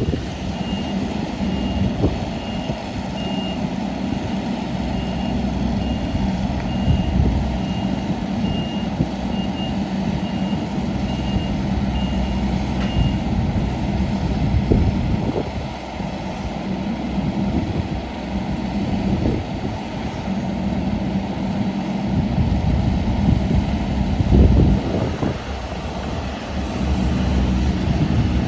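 JCB 16C-1 mini excavator's small diesel engine running steadily, with its travel alarm beeping repeatedly for the first half and occasional clanks from the machine working.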